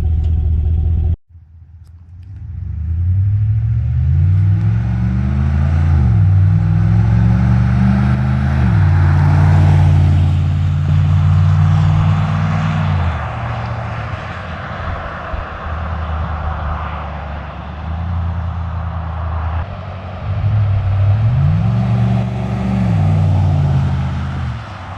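The 5.3-litre V8 of a 2014 Chevrolet Silverado, running through a Flowmaster Super 44 muffler with the resonator deleted, is heard idling until the sound cuts off about a second in. The truck then accelerates, its engine note climbing and dropping at two gear shifts, holds steady, and eases off. Near the end it accelerates through another shift.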